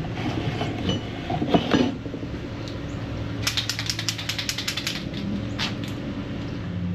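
Tools and parts being handled with a few light knocks, then a run of quick, evenly spaced mechanical clicks lasting about three seconds, over a steady low hum.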